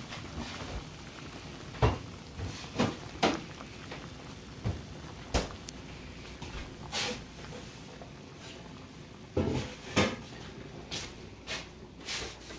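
Scattered kitchen knocks and clunks, about a dozen, from a refrigerator door and its contents being handled, with two louder knocks near 2 seconds and 10 seconds in.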